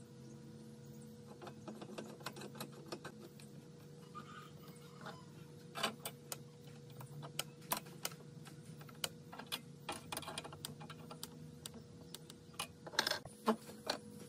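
Irregular clicks and knocks of steel bar clamps being set across a wooden table frame and screwed tight, metal knocking against wood, with a quick cluster of sharper knocks near the end. A faint steady hum runs underneath.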